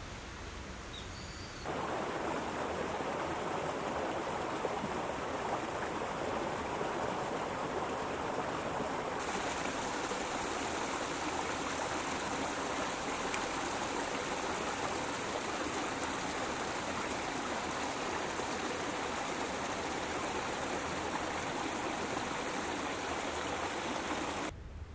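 Steady rush of running water feeding a garden pond. It starts abruptly about two seconds in, grows brighter about nine seconds in, and cuts off just before the end.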